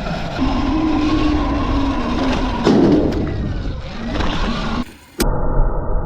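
Sur-Ron electric dirt bike being ridden: the motor's whine rises and falls with speed over tyre and wind noise, with a brief dropout about five seconds in.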